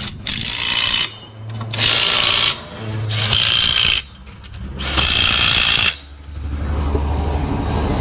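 Makita cordless impact wrench running the wheel nuts onto a car's wheel in four separate bursts of about a second each. A steady low hum takes over near the end.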